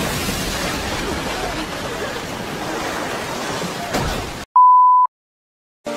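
Rushing tsunami floodwater, a dense steady noise. About four and a half seconds in it cuts off abruptly and a single steady beep tone sounds for about half a second.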